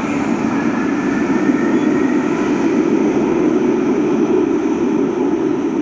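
Metro train running through the underground station, a steady, loud rumble that grows a little louder about a second in.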